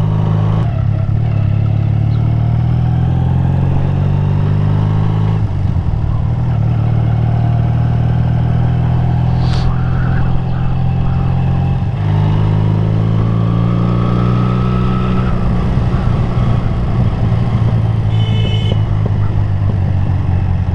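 Motorcycle engine running steadily as the bike rides along, its note changing a few times as the rider changes speed. A brief high-pitched tone sounds near the end.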